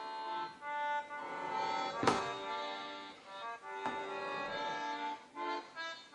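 Background music of held, sustained notes, with a sharp knock about two seconds in and a smaller one near four seconds.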